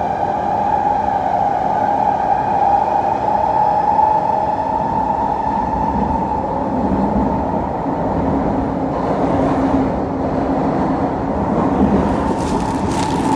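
Kawasaki C151 electric train running, heard from inside the car: a steady whine from the drive over the rumble of the wheels on the rails. The whine fades for a few seconds in the second half, and a few sharp clicks come near the end.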